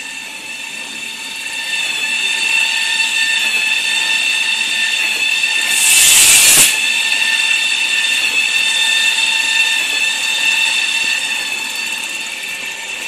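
Automatic toilet paper roll production line running: a steady high-pitched machine whine of several tones. A brief loud rushing burst comes about six seconds in.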